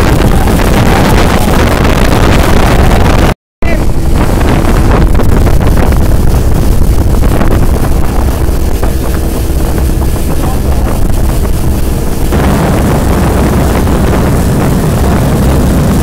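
Small motorboat running at speed, its engine drone mixed with wind buffeting the microphone and rushing water. The sound drops out completely for a split second about three and a half seconds in.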